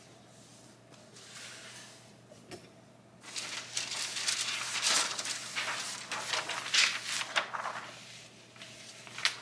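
Crackly rustling of a sheet of parchment paper being handled and smoothed over a fleece hoodie on a heat press, loudest from about three to eight seconds in, with a single sharp click near the end.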